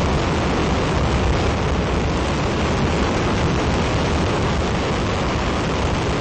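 Ares I five-segment solid rocket motor in a horizontal static test firing, mid-burn: a steady, dense rumbling noise with no change in level.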